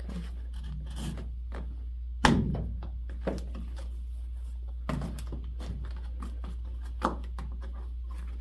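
Knocks and handling noise from a vintage rope-tensioned bass drum being taken apart, over a steady low hum. There is one loud knock with a short ring about two seconds in, and smaller knocks near three, five and seven seconds.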